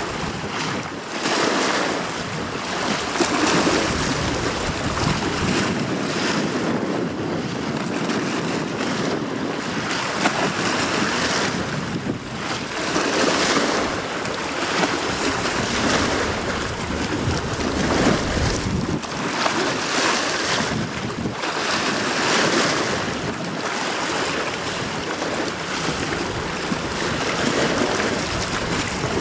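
Steady rushing wash of water and wind, with wind buffeting the microphone, as a high-speed passenger ferry cruises past; the noise swells and fades every second or two.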